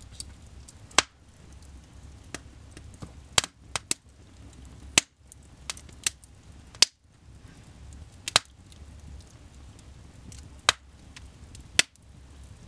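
Log fire in a fireplace crackling, with about ten sharp pops at irregular intervals over the steady low rush of the flames.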